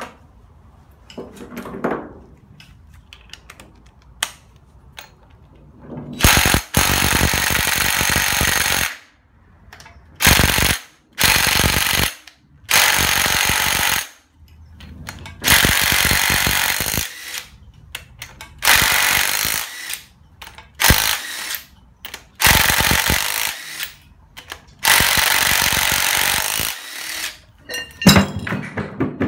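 Cordless impact wrench hammering out the flywheel bolts on a Hyundai Accent G4EC 1.5 L 16-valve engine. It runs in about nine loud bursts of one to three seconds each, with short pauses between them, starting about six seconds in.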